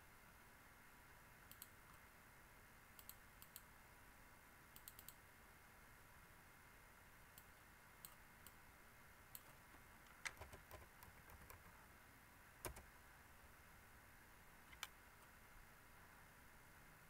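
Faint clicks of a computer mouse and keyboard over a steady low hiss, single clicks scattered through, with a quick run of keystrokes a little past the middle.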